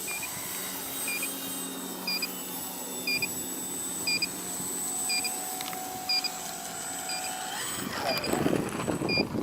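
An electronic beeper sounds a short, high double beep about once a second, very regularly.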